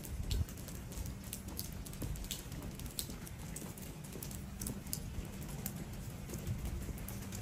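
Footsteps on wet stone paving with scattered raindrop taps: irregular light clicks, a few a second, over a low steady background.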